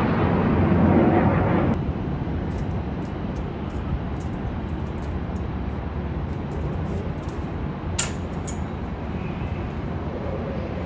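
Aircraft engine rumble heard from the ground, with a loud rush of noise that cuts off about two seconds in and leaves a steady, lower rumble. There is a sharp click about eight seconds in.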